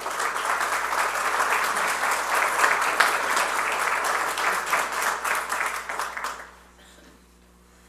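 Audience applauding, a dense patter of clapping that dies away after about six and a half seconds.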